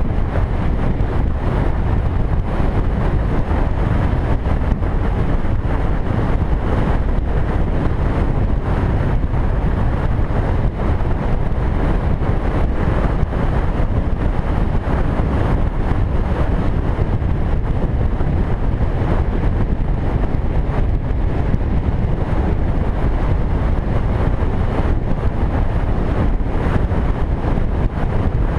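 Wind buffeting the microphone of a camera on a moving cruiser motorcycle, mixed with the bike's running and road noise: a steady, even low rumble.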